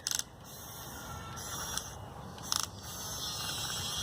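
A few short buzzing bursts from a small geared mechanism, each lasting a fraction of a second, spaced irregularly.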